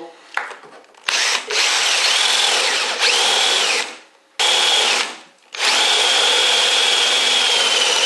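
Electric drill with a 16 mm flat wood bit boring into a wooden door frame, run in three bursts. The motor whine rises to speed at the start of each burst, and the last burst, from about halfway on, is the longest.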